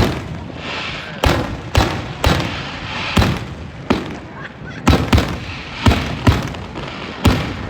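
Fireworks going off: a run of about ten sharp bangs at uneven spacing, each dying away briefly, with a steady hissing crackle between them.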